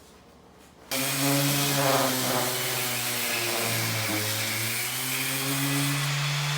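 Electric power tool running under load, its motor hum sagging in pitch through the middle as it bites, then picking back up. It starts suddenly about a second in and cuts off abruptly at the end.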